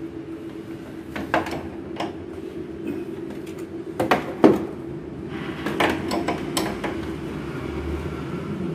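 Steel wrenches clinking and knocking against the flare nut as two spanners are fitted to and worked on the copper refrigerant pipe joint of a split air conditioner's indoor unit, the joint found leaking refrigerant oil. There are several sharp clicks, the loudest a double clank about four seconds in, over a steady low hum.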